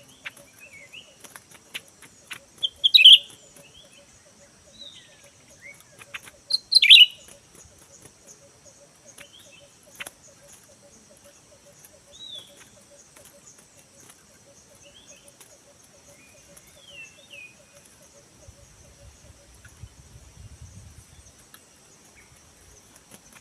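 Wild songbird calls: scattered short chirps and whistles, with two loud sharp calls about three and seven seconds in. A steady high insect drone runs underneath.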